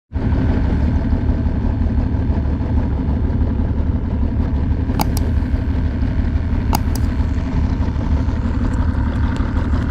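Bass boat's outboard motor idling steadily while it warms up, with two sharp clicks about five and seven seconds in.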